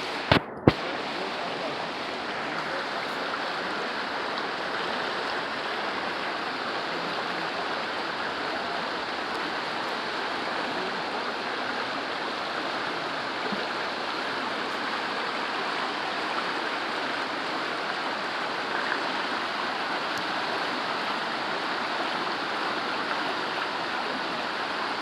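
Waterfall and creek water rushing steadily, an even unbroken roar. Two sharp clicks with a momentary dropout come just after the start.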